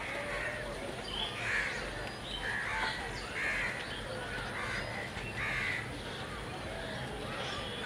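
Crows cawing repeatedly, a call roughly every second, over a faint low rumble.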